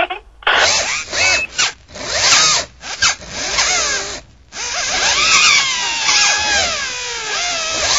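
Electric motor whirring like a power drill in short, choppy bursts, then running more steadily with a whine that slides up and down in pitch from about halfway through: a robot-arm motor sound as the arm's control joystick is worked.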